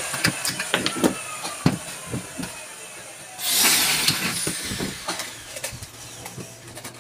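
Electric drill running in one short burst about three and a half seconds in while driving into the aluminium door frame, its pitch falling away afterwards. Before and after it, light clicks and taps of tools and metal being handled.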